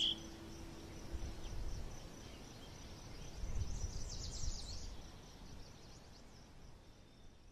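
Nature ambience: a steady low hiss and a low rumble, with a quick flurry of high bird chirps about four seconds in and a few faint chirps near the end.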